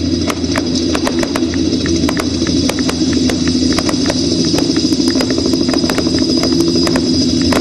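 Fireworks display: an irregular string of sharp pops and bangs, a few each second, from small aerial shells and comets bursting, over a steady low drone.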